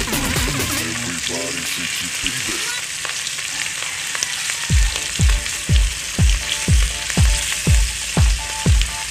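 Tuyo (dried salted fish) sizzling as it fries in hot oil in a pan. About halfway through, an electronic music beat comes in over it, with a steady kick drum of about two thumps a second that is louder than the sizzle.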